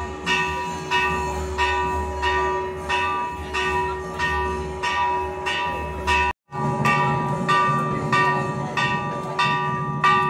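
A temple bell struck over and over in a steady rhythm, about three strikes every two seconds, each one ringing on. A steady hum runs beneath it. The sound cuts out for an instant a little past halfway.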